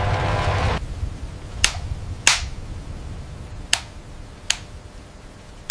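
Miniature train running steadily, stopping abruptly under a second in. Then four sharp, separate clicks follow over the next few seconds.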